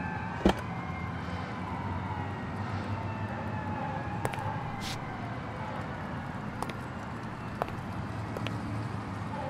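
Night city ambience: a steady low hum under a distant siren wailing, its pitch slowly falling. There is a sharp click about half a second in and a few fainter clicks later.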